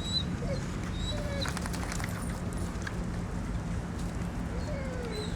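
Steady low hum of outdoor background noise, with a few faint high bird chirps and a faint low call that falls in pitch near the end.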